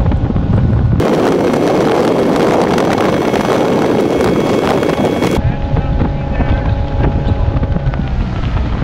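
Sea Ray 215 Express Cruiser with an Alpha One sterndrive running at top speed: a steady engine drone under heavy wind buffeting on the microphone and rushing water from the wake. About a second in, the sound switches abruptly to a harsher, hissier rush for roughly four seconds, then the engine drone returns.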